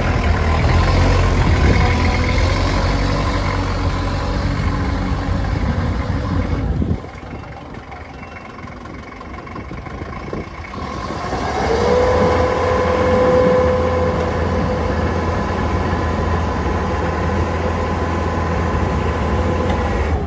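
A 3-ton forklift's Isuzu C240 four-cylinder diesel engine running loudly, then dropping suddenly to a quieter idle about seven seconds in. About twelve seconds in it revs up again, and a steady whine from the hydraulic pump runs alongside as the triplex mast lifts.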